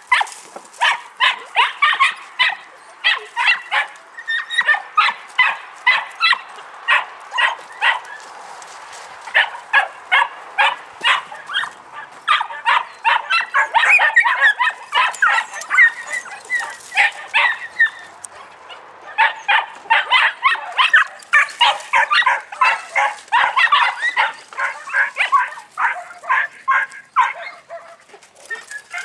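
Three-month-old podenco puppies barking in fast, repeated yaps, several a second, pausing briefly about 8 and 18 seconds in.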